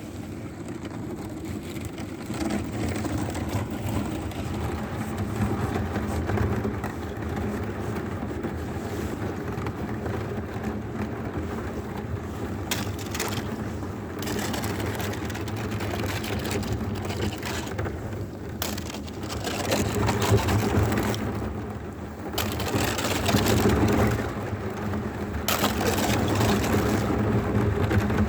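Rushing noise of wind and water around a kayak on open water, a steady rumble that rises in louder hissing surges several times in the second half.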